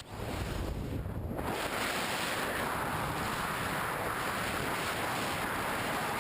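Steady rushing noise without speech, filling out about a second and a half in after a brief dip at the start, of the kind made by wind on a microphone or moving water.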